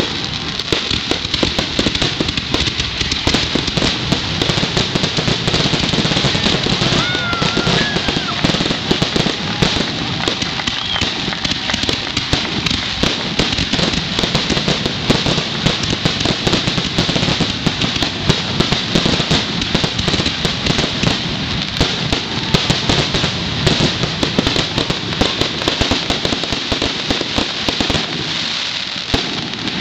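Fireworks grand finale: a dense, continuous barrage of aerial shell bursts and crackling, many bangs a second with no let-up.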